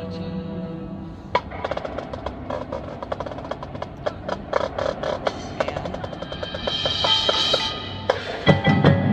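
Marching band field show: a held chord from the winds, then from about a second and a half in a fast passage of rapid percussion strikes. A cymbal-like shimmer comes near the end, and the full band comes back in just before the end.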